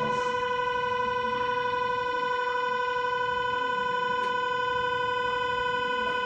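Station platform departure signal: one steady electronic buzzer tone held without a break, sounding while the train waits to leave.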